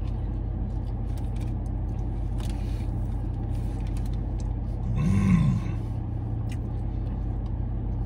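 Steady low hum of the parked car's idling engine and air conditioning heard inside the cabin, with faint clicks of chewing. About five seconds in comes one short hummed "mmm" that rises and falls in pitch, the loudest sound here.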